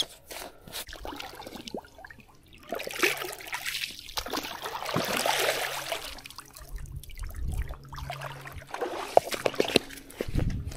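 A container being filled with water: trickling and splashing, with a steadier rush of water from about three to six and a half seconds in, and knocks and sloshing around it.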